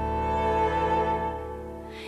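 Slow instrumental music with long held notes, fading toward the end.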